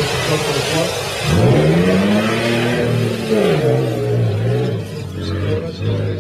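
Off-road 4x4 race car's engine revving hard as it drives through a water crossing, with water spraying at first. The engine pitch climbs sharply about a second in, holds, and drops back a couple of seconds later.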